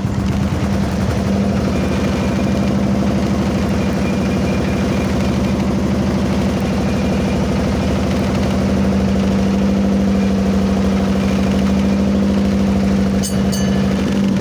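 Fishing boat's engine running steadily at an even idle-like speed, a constant low hum. A few short clicks near the end.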